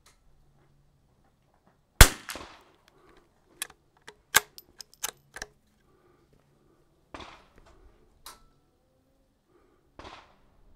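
A Kimber 82 Super America bolt-action .22 LR rifle fires one sharp shot about two seconds in. A quick run of metallic clicks follows as the bolt is worked to eject the case and chamber the next round. Two fainter bangs come later.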